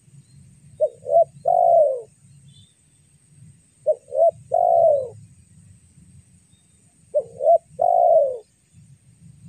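Spotted dove cooing: three calls a few seconds apart, each two short notes followed by one longer, falling note.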